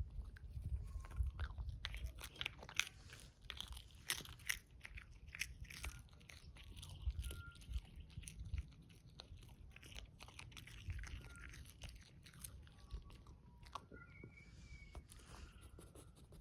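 Dog crunching and chewing a hard fish treat, a rapid series of crunches that thins out after about ten seconds.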